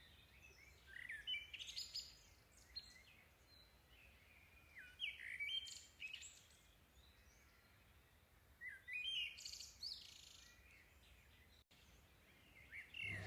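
Faint birds chirping and twittering in three short bursts, about four seconds apart.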